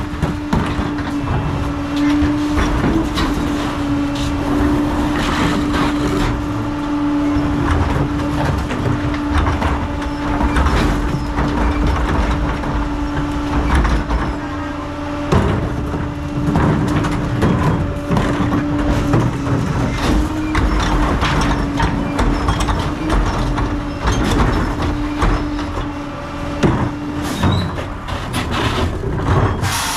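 CCC garbage truck with a 30-yard PakMor rear-loader body running with a steady hum that stops near the end, while trash carts are tipped into its rear hopper with repeated clunks, bangs and the clatter of falling trash.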